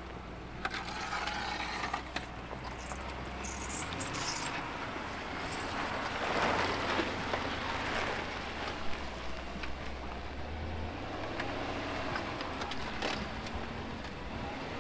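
A vehicle engine running steadily with a low hum that shifts about four seconds in and again near the end, under scattered rustling and a few sharp knocks.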